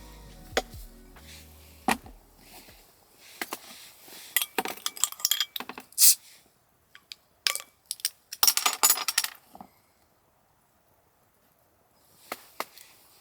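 Background music fading out, then a run of sharp clicks and clinks of small hard objects being handled, bunched in the middle and again briefly near the end.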